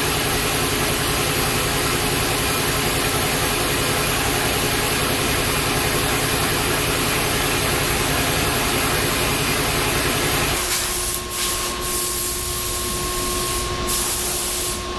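Hydraulic power unit of a motor-stator splitting press, an electric motor driving a hydraulic pump, running steadily with a loud hiss and hum. About ten seconds in the sound drops abruptly to a quieter steady hum with a higher tone, with a few short clicks.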